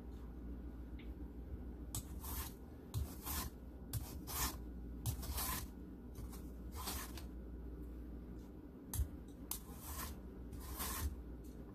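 Vegetable peeler shaving long ribbons off a large zucchini: about a dozen short scraping strokes at an uneven pace, some in quick pairs.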